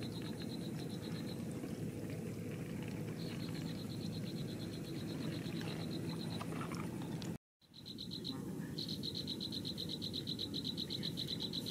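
Frogs calling in high, rapidly pulsed trills, each a second or more long and repeating, over a steady low rumble. The sound drops out completely for a moment about seven and a half seconds in, then the trills return louder and more continuous.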